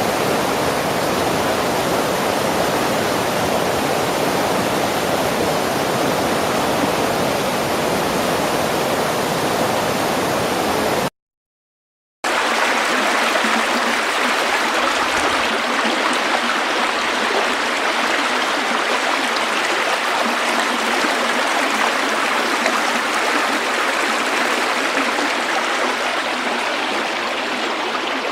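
River water flowing and gurgling steadily. About eleven seconds in it drops to dead silence for about a second, then resumes thinner, without the deep rumble.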